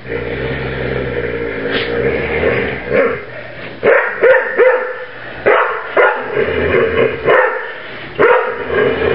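Dogs playing: a drawn-out growling call for the first few seconds, then about a dozen sharp barks in quick succession, roughly two a second, from about four seconds in.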